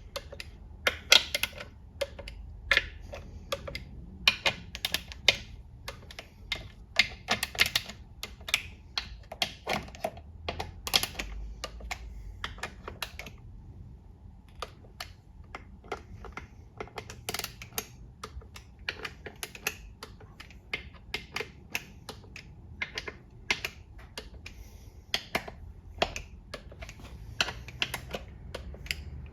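Click-type torque wrench and ratchet working round the transmission oil pan bolts, checking each at torque: a run of sharp, irregular clicks, dense at first, pausing briefly about halfway, then sparser.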